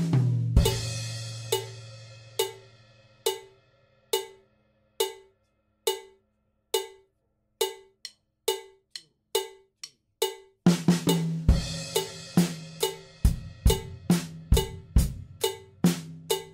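A 69 bpm metronome click, a cowbell-like tick about once every 0.87 s, sounds alone for about ten seconds while a cymbal and drum hit ring out at the start. About ten and a half seconds in, a drum kit comes back in with a 16th-note groove of snare, bass drum and hi-hat over the click.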